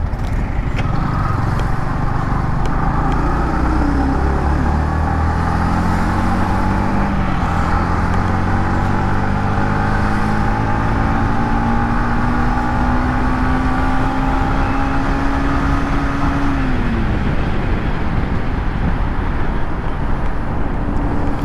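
Yamaha MT-15's 155 cc single-cylinder engine through its stock exhaust, heard from the rider's seat over wind rush while accelerating. Engine pitch climbs and drops back twice in the first seven seconds as it shifts up through the gears, then climbs slowly at cruising speed and falls away about three-quarters through as the throttle is eased.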